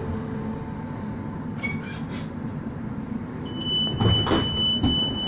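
CAF Urbos 3 tram standing at the platform with a low steady hum, then its door warning sounds: a steady high-pitched tone starting about three and a half seconds in, with a rumble of door movement just after.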